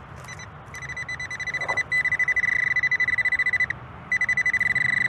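Nokta AccuPoint pinpointer beeping: a high electronic beep that starts about a second in and quickens into an almost continuous tone, signalling metal close to the probe tip. It breaks off briefly near the end, then starts beeping again.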